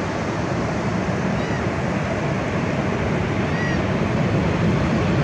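Steady rush of surf and wind, with a short, high chirp sounding twice, the second one clearer.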